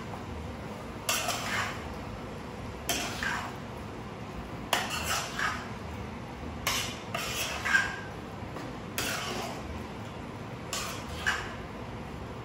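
A spoon scraping against a cooking pot as black-eyed beans in tomato sauce are stirred, one stroke roughly every two seconds.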